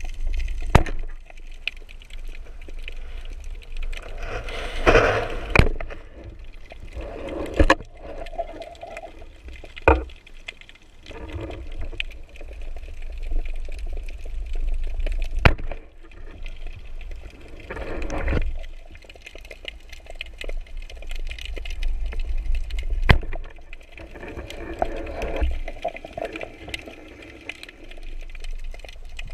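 Water noise on an underwater camera during spearfishing: a low rumble with swells of sloshing or bubbling every few seconds and a handful of sharp clicks.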